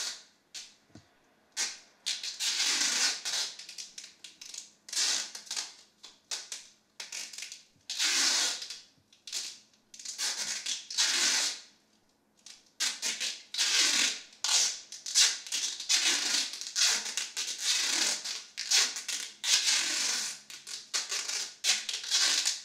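Crinkling and rustling of clear plastic wrap covering a person's head as the hands work it, in irregular bursts with short gaps, coming thicker and faster in the second half.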